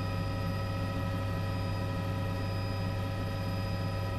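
Steady cabin noise of a police surveillance aircraft in flight: a low hum with several steady whining tones above it, unchanging throughout.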